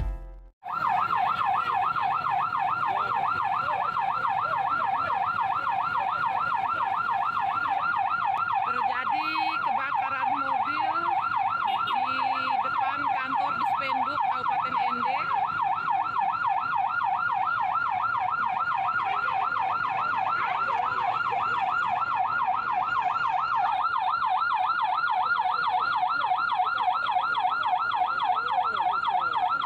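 Fire engine's electronic siren on a rapid up-and-down yelp, running steadily without a break.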